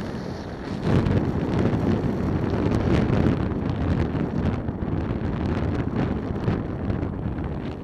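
Wind buffeting the helmet camera's microphone as a motor scooter rides along, a gusty rushing that drowns out most of the scooter's running sound.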